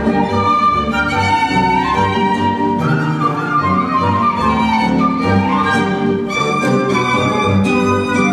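String quartet playing: violins carry a moving melody over a regularly pulsing low bass line.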